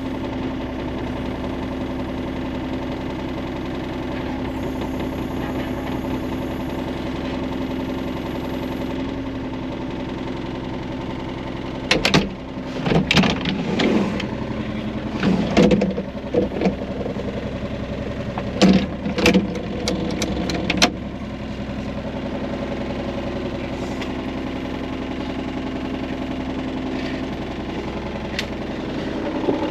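Skid loader engine idling steadily. Partway through comes a run of sharp metal clanks and knocks, lasting about nine seconds, as the bucket is worked loose from its mount.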